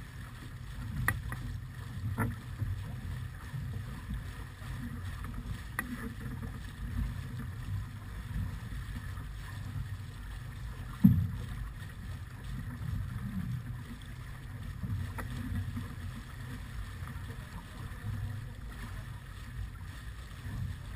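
Wind buffeting the microphone over the rush of water along the hull of a sailing yacht heeled under sail, with a few knocks, the loudest about halfway through.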